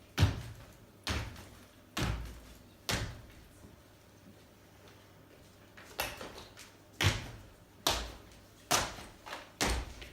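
Feet landing jumps on a floor: a heavy thud about once a second, four in a row, a pause of about three seconds, then five more.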